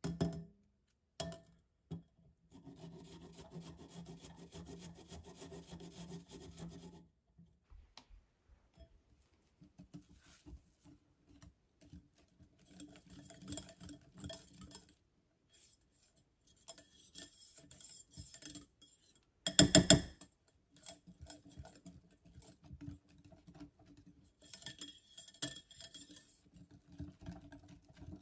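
Carrot being rasped on a fine stick grater for a few seconds near the start. After that, a wire whisk beats carrot cake batter in a glass mixing bowl, scraping and clinking against the glass. A short burst of fast, louder strokes comes about two-thirds of the way through.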